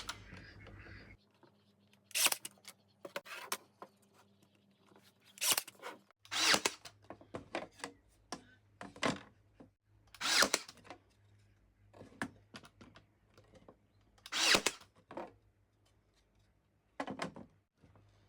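RYOBI 18V ONE+ AirStrike cordless 18-gauge brad nailer firing 20 mm brads into wooden beehive frame joints: about nine or ten sharp shots at irregular spacing, with faint knocks of wood being handled in between.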